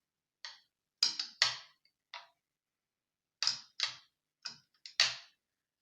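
Sharp clicks and taps from the parts of a thread weaving machine being handled: about ten short clicks in uneven clusters, the loudest about five seconds in.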